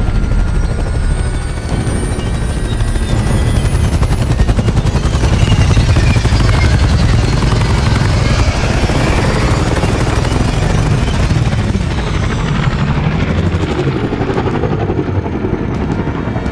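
Loud, steady thrum and rumble of a fleet of tilt-rotor dropships in flight, many rotors blending together, with a few faint sliding whines in the first few seconds.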